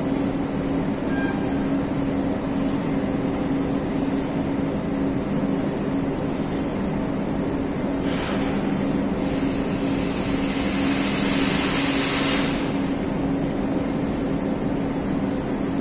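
Steady hum of industrial machinery with a low droning tone. About eight seconds in a hiss starts, lasts about four seconds and then cuts off.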